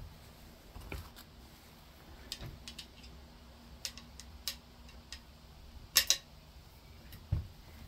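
Metal hand tools clinking as they are handled: scattered light clicks and taps, with a sharp double clink about six seconds in, over a faint steady low hum.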